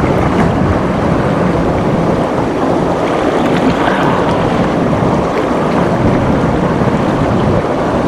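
Steady, loud rush of water from a waterfall and its fast-flowing current.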